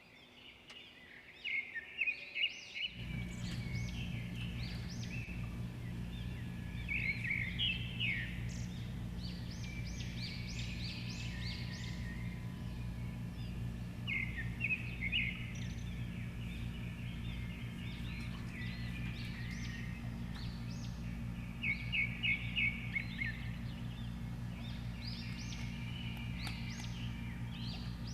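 Small birds chirping and twittering in repeated bursts, over a steady low hum that starts about three seconds in.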